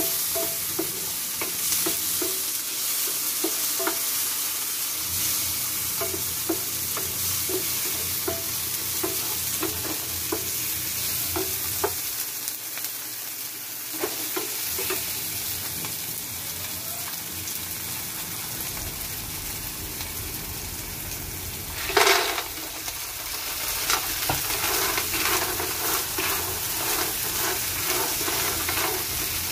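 Chopped onion, garlic and tomato sizzling in hot oil in a granite-coated pan while being stirred, with frequent light scrapes and taps. About three quarters of the way through a loud clatter as the clams go into the pan, then busier rattling of shells in the sizzle.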